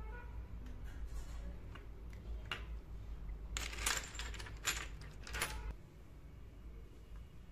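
Miniature ceramic vases and pots clinking against one another as they are picked up and set down. One light clink, then a quick cluster of clinks in the middle, then two more single clinks.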